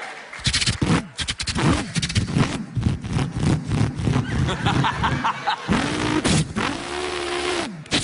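A man imitating a V8 Holden Torana with his voice: a fast stutter of popping sounds, then a rumbling, revving engine note. Near the end he climbs twice to a held high rev that drops away.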